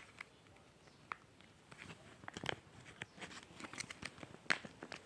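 Soft scattered clicks and sticky crackles of hands handling a squishy toy, with a sharper click about four and a half seconds in.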